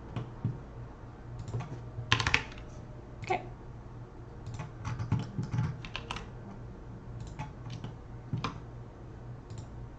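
Computer keyboard keys and mouse buttons clicking in irregular, scattered clusters, densest about five to six seconds in, over a faint steady low hum.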